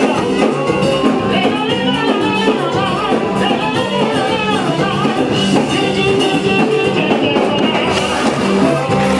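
Music with a steady beat, guitar, drums and singing.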